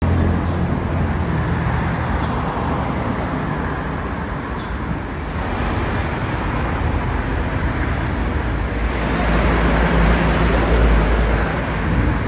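Road traffic on a busy city street: a steady rumble of vehicle engines and tyres, swelling for a couple of seconds near the end as a heavier vehicle passes.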